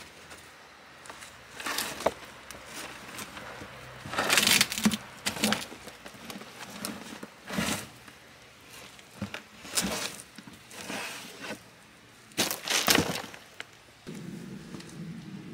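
Rotten, weathered wooden raised-bed boards being pulled apart and broken, cracking and clattering in irregular bursts every couple of seconds. The wood gives way easily because five years outdoors have left it rotten. Near the end a steadier, lower scraping sound takes over.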